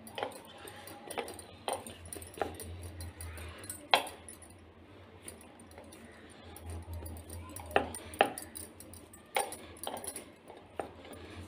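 Scattered light clicks and clinks of kitchen utensils, about a dozen sharp knocks spread irregularly, as folded dough is pressed flat by hand, over a low steady hum.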